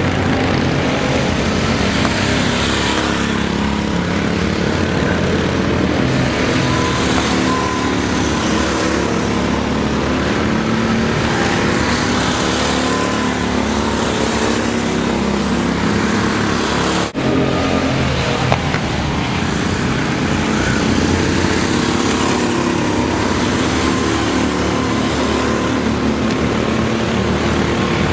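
Go-kart engines running hard on a track, the engine note swelling and falling every few seconds. There is a brief break with a click about 17 seconds in.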